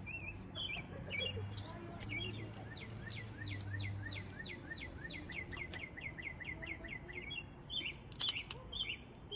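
A songbird singing: a few chirps, then a long run of quick, repeated down-slurred notes, about four or five a second, then more chirps. A sharp click near the end is the loudest moment.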